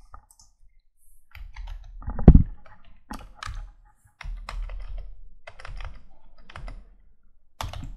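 Typing on a computer keyboard: irregular keystrokes and short runs of keys, with one heavier knock about two seconds in.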